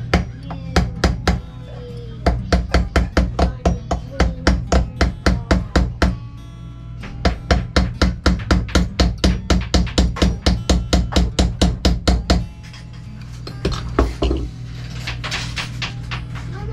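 Claw-hammer blows on the metal body of a Lehman diesel fuel pump clamped in a bench vise, fast and even at about four a second, in two long runs broken by a short pause.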